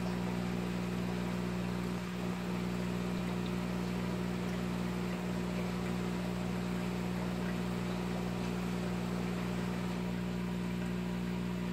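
Aquarium air pump humming steadily, with a light hiss of air over the low hum.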